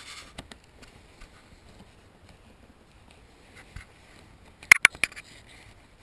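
Light scraping and small clicks of a pry tool working under the floor carpet at a metal carpet clip, then a quick cluster of about four loud, sharp clicks a little under five seconds in as the clip is forced.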